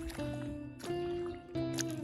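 Background music: held chords that change a few times, with light percussive hits.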